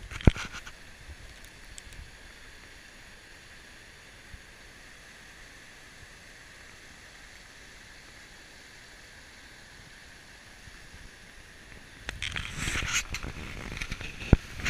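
Shallow river water running steadily over stones and a small fall, a constant high hiss. There is a sharp knock just after the start. About twelve seconds in comes a spell of rustling and knocking, louder than the water.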